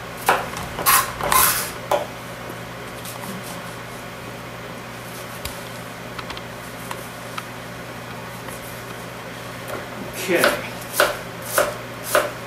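Offset serrated knife chopping an onion on a cutting board: a few quick chops at first, a pause of several seconds with only a low steady hum, then a steady run of chops, a little under two a second, near the end.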